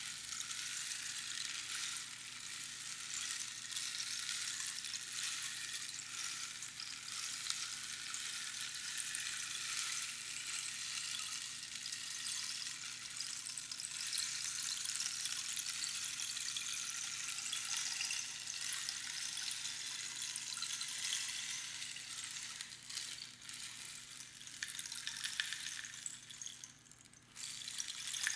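Rainstick: small pebbles or beans trickling down past the pins inside a hollow cactus tube, making a steady rain-like patter. Near the end the flow thins out and briefly stops, then starts again as the stick is turned over.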